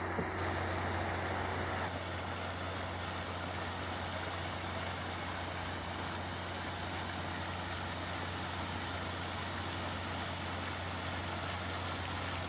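Three-phase electric paddlewheel aerators churning pond water: a steady rush of splashing spray over a low, even motor hum.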